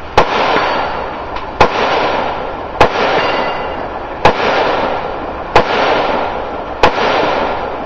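Six rifle shots, slow and evenly paced about a second and a half apart, fired through a barricade port, over a steady rushing noise.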